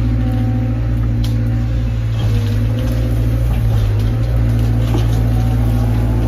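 Cat 320 excavator's diesel engine and hydraulics working under load, heard from inside the cab: a steady, loud engine drone with higher tones that shift as the boom and bucket push over a tree, with a few faint knocks.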